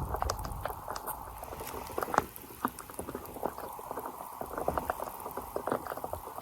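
Rain pattering close by: a dense, irregular run of drop ticks and pops over a soft hiss, with a few sharper ticks about two seconds in and near the end.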